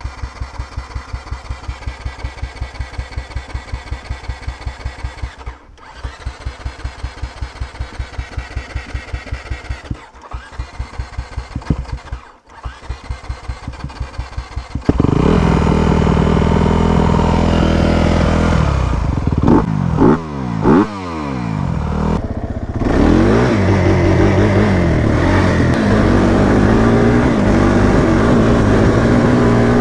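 A Honda CRF250R's four-stroke single being cranked on its electric starter, about five chugs a second, in four tries broken by short pauses. It is hard to restart after bogging out and stalling. About halfway through it catches and runs, is revved up and down a few times, then keeps running.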